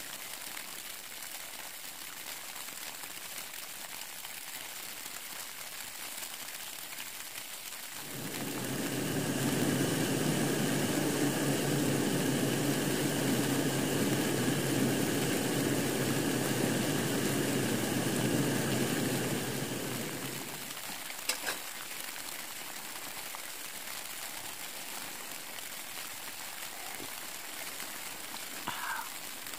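Rain pattering steadily on a tarp shelter. About eight seconds in, a backpacking gas canister stove under a metal pot runs with a loud, steady hiss for about twelve seconds, then dies away, and a couple of sharp clicks follow.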